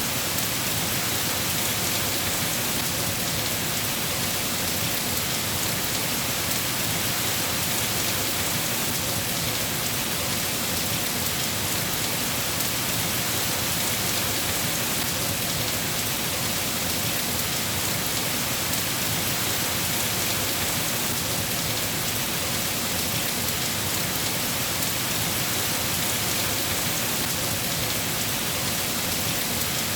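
Steady, even rain falling on surfaces.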